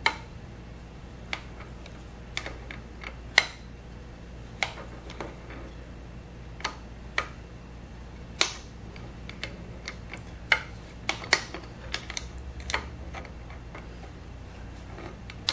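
Irregular sharp metallic clicks and clinks of a wrench and a threaded nut being worked on a steel Monarch 10EE lathe spindle, over a steady low electrical hum.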